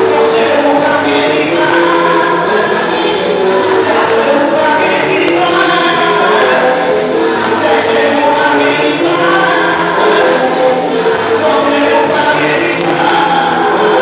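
Gospel choir singing in French, many voices together, over a steady beat.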